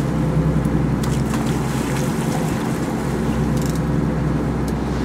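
Sport-fishing boat's engine running steadily, a low even hum with a few faint clicks over it.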